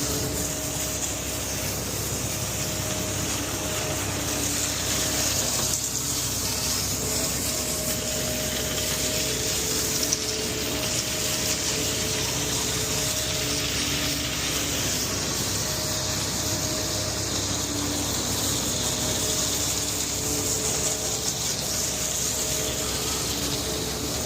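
Water spraying steadily from a washout hose on a ready-mix concrete truck, washing concrete off the mixer. A faint hum comes and goes underneath.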